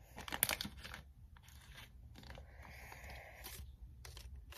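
Match Attax trading-card foil pack crinkling and tearing as it is pulled open by hand. There is a dense burst of crackling in the first second, then softer scattered crinkles.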